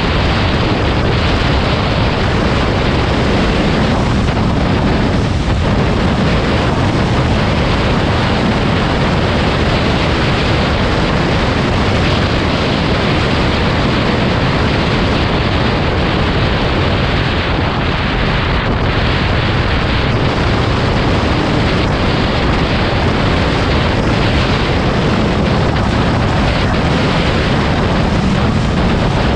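Loud, steady wind rumble buffeting the microphone, with no distinct tones or separate events.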